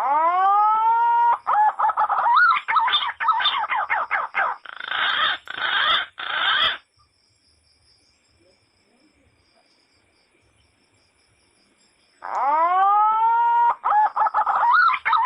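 A loud recorded animal call: a rising pitched cry, then a fast chattering run of notes lasting several seconds. It stops and starts again about twelve seconds in with the identical pattern, like a played-back lure call.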